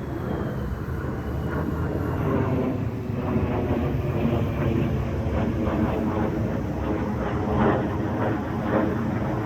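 Military jet flying high overhead: a steady, distant engine rumble that builds slightly, with a faint falling whine in the first few seconds.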